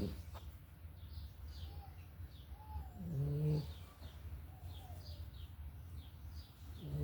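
Snoring in sleep. A low snore comes about three seconds in and another starts right at the end, roughly one every three and a half seconds. Faint bird chirps repeat throughout.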